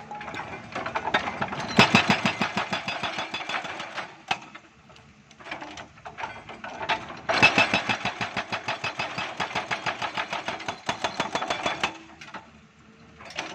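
Hydraulic breaker hammering concrete: two long runs of rapid, even blows, the first starting about two seconds in and the second about halfway through, with a machine engine running under it between them.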